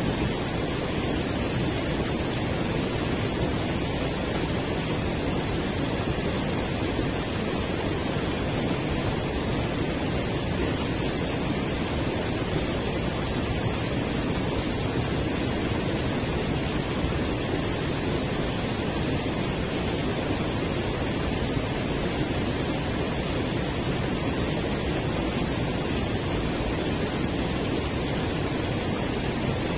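Steady rushing of river water pouring over a low concrete weir, a constant even roar with no breaks.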